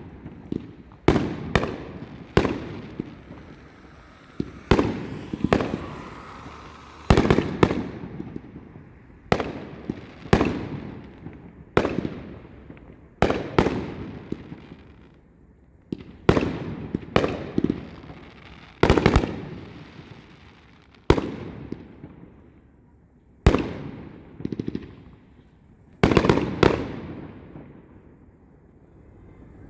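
Fireworks going off in a steady series of sharp bangs, one every one to two seconds, some in quick pairs, each trailing off in an echoing tail.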